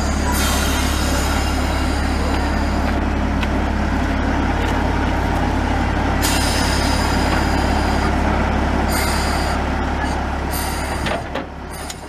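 Mk45 narrow-gauge diesel locomotive idling with a steady low drone, while compressed air hisses in several bursts, the longest about three seconds, as the brake hoses are handled at the coupling. The sound drops away near the end.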